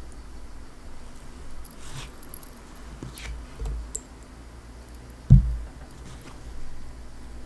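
Light clicks and rattles of a miniature 1:7 scale AKM model rifle and its small stripped parts being handled, with one loud, low thump a little past five seconds in.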